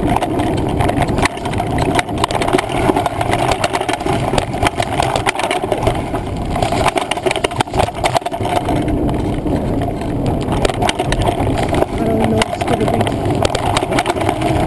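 Mountain bike riding over a rough woodland trail, heard through a handlebar-mounted action camera: a steady loud rumble of tyre and wind noise, with dense rattling and knocking from the bike over bumps.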